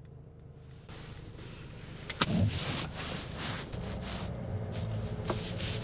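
Inside a van's cabin: a sharp click about two seconds in, then the engine's low, steady hum.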